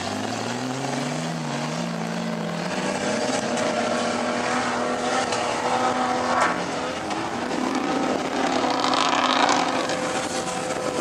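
Off-road 4x4 engine revving, climbing in pitch over the first couple of seconds, then running steadily at high revs.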